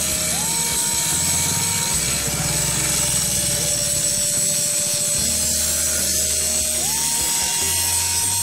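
Background music: a held melody note that slides up and back down twice over low bass notes changing every few seconds, with a steady hiss underneath.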